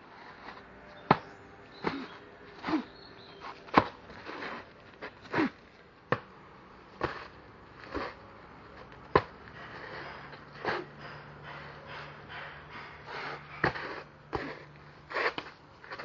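A bajiquan practitioner working through techniques: sharp impacts of strikes and stomps, with short forceful breaths and the swish of clothing, coming irregularly about once a second.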